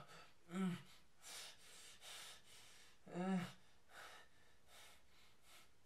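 A man breathing heavily: noisy breaths in and out, with two short voiced gasps, about half a second in and again about three seconds in.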